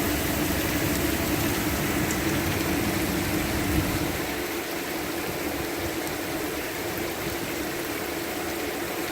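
Heavy rain falling and running off in a steady hiss, over a constant low hum; the low rumble beneath eases off about four seconds in.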